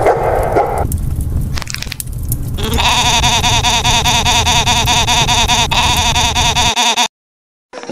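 A long, wavering goat-like bleat begins about three seconds in and holds for about four seconds over a low rumble, then cuts off abruptly.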